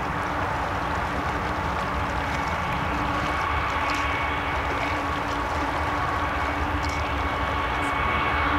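Union Pacific freight train's diesel locomotives running as they approach, a steady drone with a thin whine that comes in about two seconds in, growing slightly louder toward the end, over the rush of a river.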